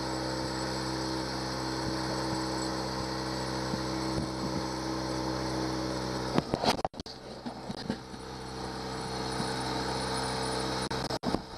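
Honda 8 hp four-stroke outboard kicker motor running steadily under way, pushing the boat. The drone briefly cuts out with a few clicks about seven seconds in.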